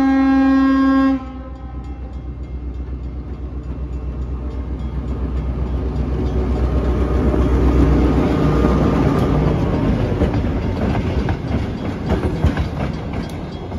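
Diesel locomotive horn sounding a steady chord that cuts off about a second in. Then a pair of diesel locomotives pass close by: the engine rumble builds to its loudest about midway, and the wheels clack rapidly over the rail joints.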